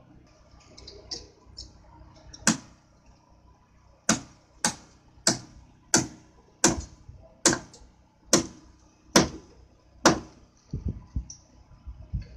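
Sharp hand-hammer blows at a rebar site: one strike, then a steady run of about nine blows, roughly one every two-thirds of a second, each with a short ring after it.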